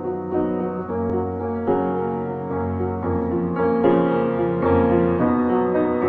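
Instrumental background music: the intro of a song, with chords that change every second or so.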